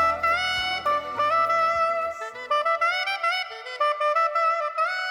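Saxophone playing the song's closing melodic phrases with sliding notes. The band backing drops out about two seconds in, leaving the saxophone alone.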